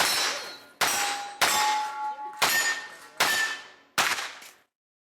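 Six shots from a pistol-caliber carbine, spaced a little under a second apart. Several are followed by the ringing of a struck steel target.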